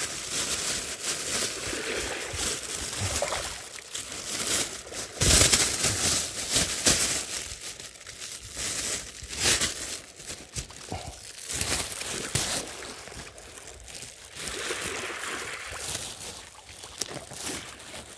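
Shallow seawater sloshing and crackling over a coral reef, with irregular crackles throughout and a louder rush about five seconds in.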